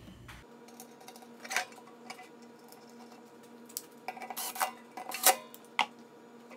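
A few light knocks and small metallic clicks from hands handling things on a bench, the loudest about five seconds in, over a faint steady hum.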